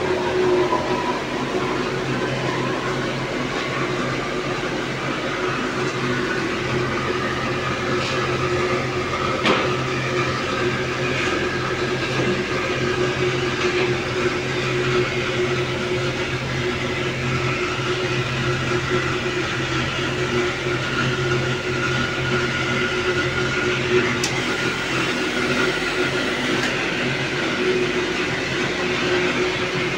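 Steady machine hum and whir of a running three-phase electric steam boiler set-up, with a few faint clicks along the way.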